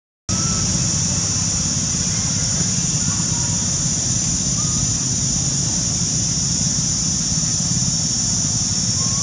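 Steady forest ambience: a continuous high-pitched insect drone over a low rumble, with a few faint short chirps. The sound cuts out for a moment at the very start.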